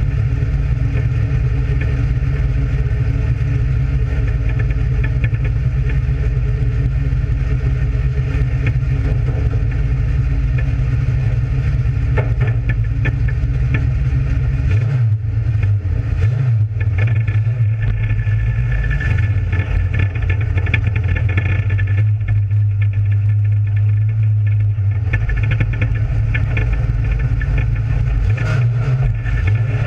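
Dirt-track race car's engine running at a low, steady speed, heard from inside the cockpit; its tone shifts about halfway through.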